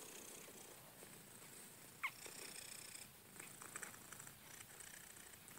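Faint purring from a tabby cat being stroked, with light rustling of fur under the hand. About two seconds in there is a brief high squeak that falls in pitch.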